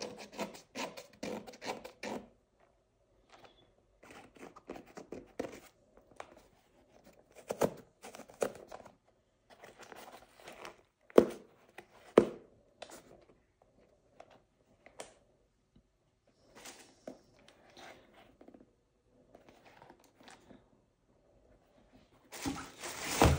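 Handling noise of a studded football boot and crinkly tissue paper: scattered rustles and scrapes with a few sharp knocks, the loudest about 11 seconds in. Near the end a louder burst of tissue paper rustling as the boots go back into the paper-lined box.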